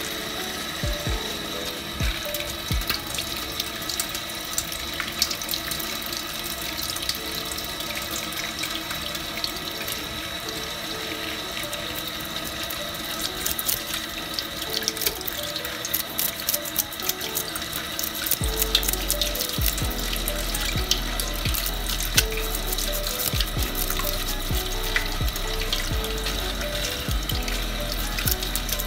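Tap water running onto a fish in a stainless-steel sink, with a knife blade scraping off the scales in many quick strokes that come thicker in the second half.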